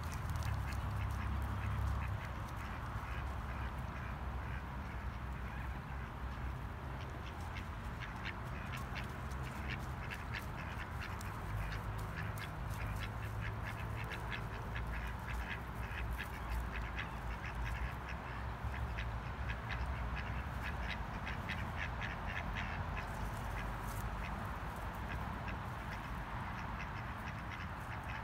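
Mallard ducks quacking softly in a group, a run of quick short calls that is busiest from about a third of the way in until near the end, over a steady low rumble.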